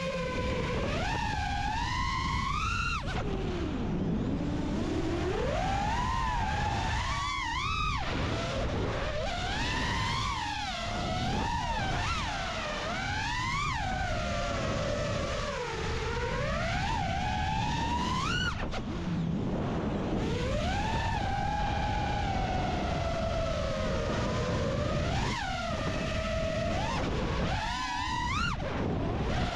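FPV quadcopter's brushless motors and propellers whining, the pitch sweeping up and down constantly as the throttle is worked, over a steady low rushing noise.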